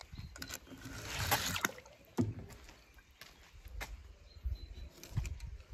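Die-cast toy car handled and run over a glitter-covered ramp: a short gritty rush about a second in, scattered light clicks, and low rumbles.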